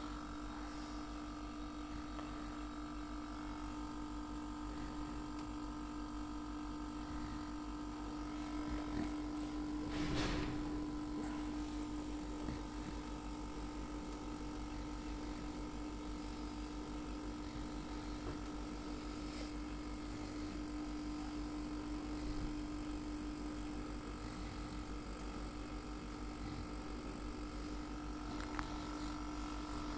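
Heat-pump compressor of a tumble dryer running after being rewired, a steady electric hum with a fixed pitch. A brief knock about ten seconds in.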